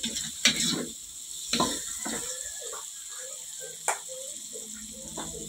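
Chili and garlic spice paste frying in oil in a steel wok with a light, steady sizzle, and a metal spatula scraping and knocking against the wok a few times.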